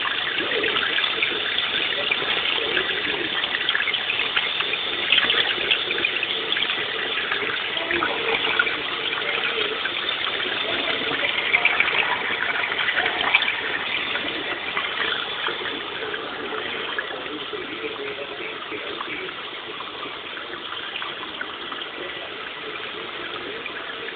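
Churning, rushing water with steady splashing, easing off slowly in the second half.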